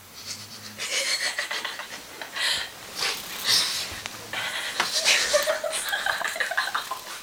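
Stifled, breathy giggling and snickering in irregular bursts, kept under the breath rather than laughed out loud.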